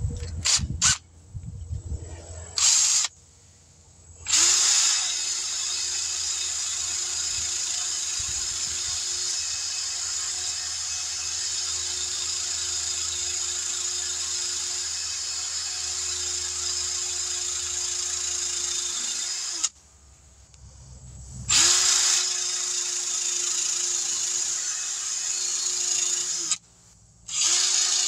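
Hand-held power tool running in spells to clean rust off a seized brake caliper slide pin: a brief run about three seconds in, a long steady run of about fifteen seconds, then one of about five seconds and a short one at the end, a steady motor tone under a scratchy hiss.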